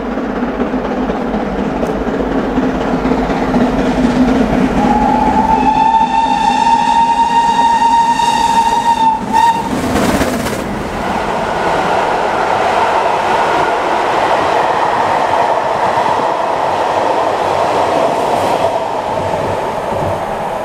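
GWR Castle-class steam locomotive 7029 Clun Castle approaching at speed and sounding one long whistle blast of about five seconds. It passes close by with a loud rush about ten seconds in, then its coaches run past, rumbling and clattering over the rails.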